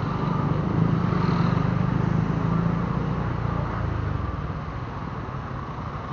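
Motor scooter engine running at low speed in slow city traffic, with road noise from the surrounding vehicles; the engine note eases off about four seconds in.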